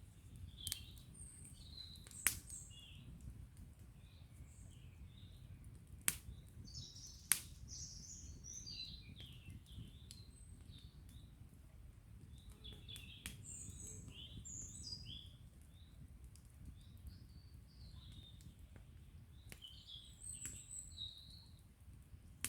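Wood campfire crackling, with a few sharp pops, the loudest about two, six and seven seconds in, over the low steady rush of a small stream. Songbirds chirp throughout.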